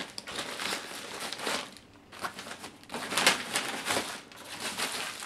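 Plastic wrapping around a computer monitor crinkling as it is handled and pulled off, in irregular bursts with a quieter pause about two seconds in.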